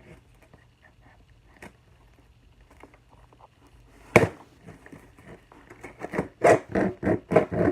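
Knife working through the tape and cardboard of a shipping box: faint scrapes, one sharp knock about four seconds in, then a quick run of loud cutting strokes near the end.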